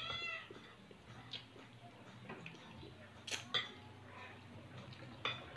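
Quiet eating sounds at a table: a few faint clicks and taps against a plate, spaced a second or two apart, with a short vocal sound at the very start.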